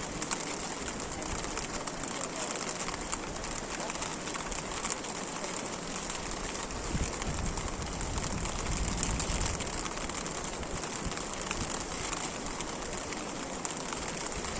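Steady rain falling, a dense even hiss made of many small drop hits.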